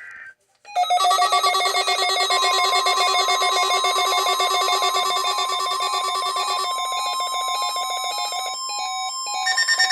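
NOAA Weather Radio weekly-test alert tones: a steady alarm tone near 1 kHz sounds under a busy, rapidly pulsing electronic warble of several tones. The warble changes to fast, even beeping near the end.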